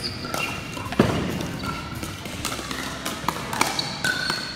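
Pickleball rally: sharp clicks of paddles hitting the plastic ball, a heavier thud about a second in, and short high squeaks of sneakers on the hardwood gym floor.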